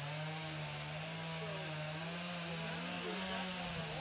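Chainsaw running steadily at high revs, cutting into a standing hardwood tree during a plunge-cut felling.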